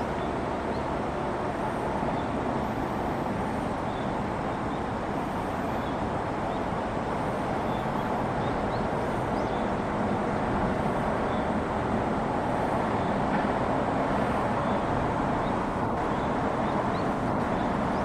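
Steady rushing of a muddy river in flood after extreme rainfall: an even wash of noise, with faint short high chirps now and then.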